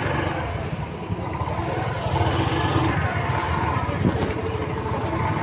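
Scooter and motorcycle engines running in a low, uneven rumble, with voices in the background and a brief knock about four seconds in.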